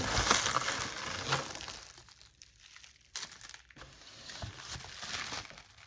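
Packaging crinkling and rustling as it is handled and unwrapped. It is loudest in the first second and a half, then comes in fainter, irregular rustles.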